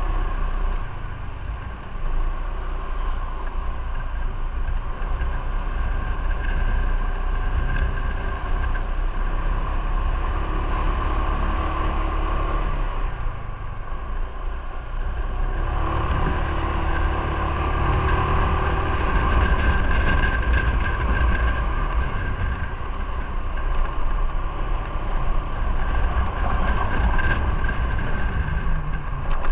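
Motorcycle riding on a city street: the engine runs with wind rushing over the camera mic. The sound drops off briefly about halfway through, then grows louder again.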